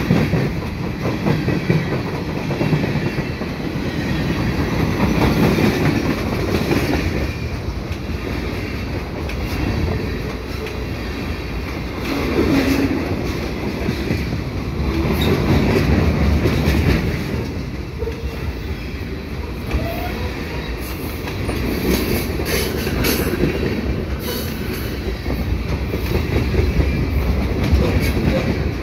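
Freight train cars rolling past close by: a steady rumble with wheels clacking over the rail joints. A run of sharper clicks and brief wheel squeal comes about two-thirds of the way through.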